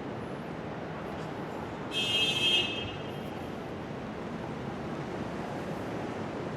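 Steady city street traffic noise, with a brief, loud, high-pitched squeal lasting under a second about two seconds in.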